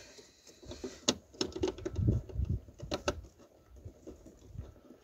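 Plastic wiring-harness connector plugs being handled and pushed into a connector frame in a car's door pillar: a scatter of small, sharp plastic clicks and taps with the rustle of hands working.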